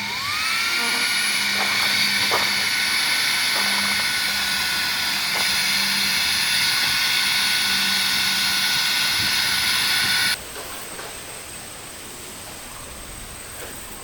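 A small high-speed electric motor whine: it spins up with a rising pitch over about a second, then runs at a steady high whine and cuts off suddenly about ten seconds in. A few faint ticks sound alongside it.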